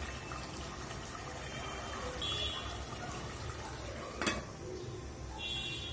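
Duck meat braising in spices in a steel pot on a gas burner: a steady low simmering hiss, with one sharp knock about four seconds in.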